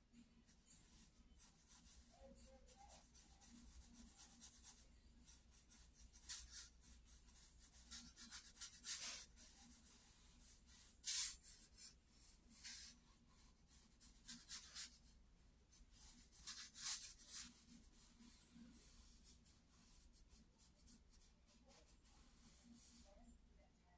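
Charcoal stick scratching across sketchbook paper in a series of short, faint strokes, the loudest ones in the middle.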